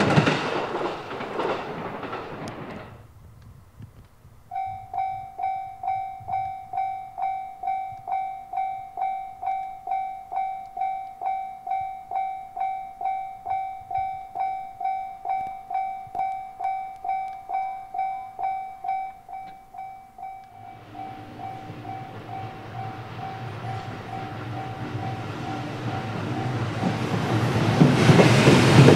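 Japanese level-crossing bell ringing about twice a second. Partway through, a freight train of hopper cars hauled by an EF510 electric locomotive approaches, its rumble rising until it is loud near the end.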